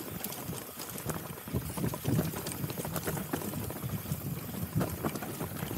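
Mountain bike rolling over a rough dirt trail: a steady tyre rumble on the ground with irregular clicks and rattles from the bike over bumps.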